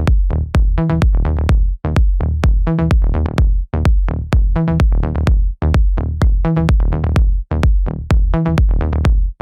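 Electronic dance music with a heavy drum-machine kick, about two beats a second, and short synth stabs.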